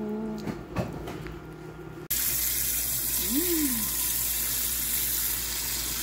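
Water running steadily from a kitchen tap into a sink, starting abruptly about two seconds in.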